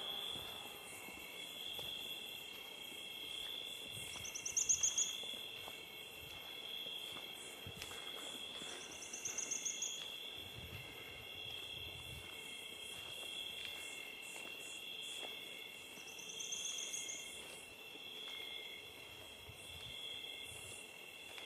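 Nocturnal insects calling: a steady, pulsing chorus of several high-pitched calls. A louder and higher rapid trill cuts in three times, about four, nine and seventeen seconds in.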